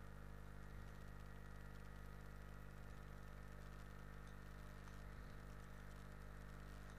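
Near silence: a faint steady hum with light hiss from the recording setup, with nothing else happening.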